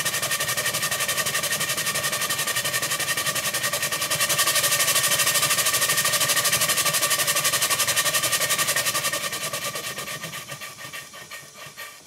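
A 2-inch scale Fowler traction engine's single cylinder running fast with rapid exhaust beats, on its test run after the piston rod gland was repacked and the small end bearing adjusted. About nine seconds in it slows and dies away, the beats spreading out.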